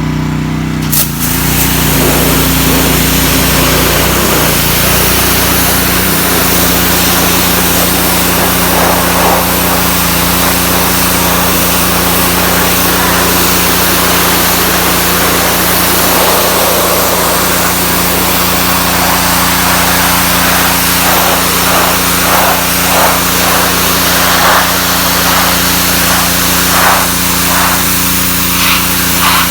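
Honda GCV160 gas engine of a Ryobi 3000 psi pressure washer running steadily, with a loud hiss of the high-pressure water jet starting about a second in as the spray is turned on. The engine note shifts as the spraying begins.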